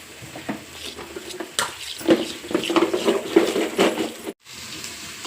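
Metal kitchen utensils clattering: a spoon knocking and scraping against a pot and bowl in a quick run of clinks and knocks, busiest in the middle.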